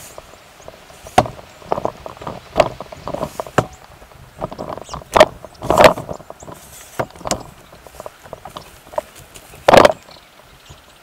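Irregular knocks and clicks, about a dozen, scattered unevenly with quieter stretches between. The loudest come about five to six seconds in and again near the end.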